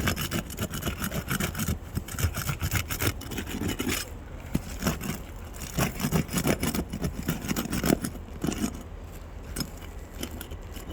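Roof shingles being pried up to free their nails: repeated irregular scraping and rubbing with short knocks.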